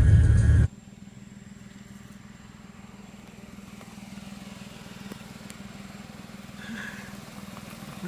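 Cabin noise of a small hatchback driving, its engine and tyres loud and low, cut off abruptly under a second in. A quiet outdoor ambience follows, with a faint steady low hum.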